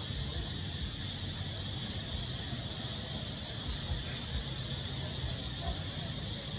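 A steady high-pitched chorus of insects, with a low rumble underneath.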